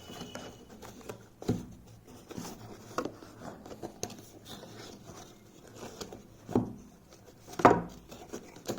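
Cardboard box and packaging being handled: soft rubbing and scraping with a few light knocks, the loudest near the end.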